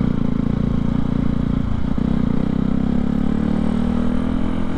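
Motorcycle engine running under way, with a short break in its note about two seconds in, then its pitch rising steadily as it accelerates.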